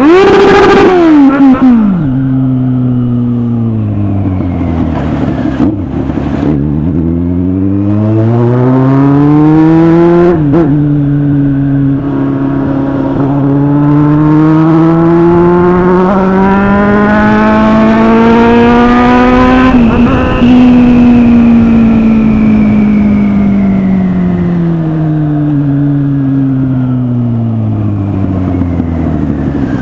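Kawasaki Z800's inline-four engine under way. A sharp rev opens it, then the pitch falls as the bike slows. It climbs again with an upshift about ten seconds in and pulls steadily up to a peak around twenty seconds, then winds slowly down as the throttle comes off.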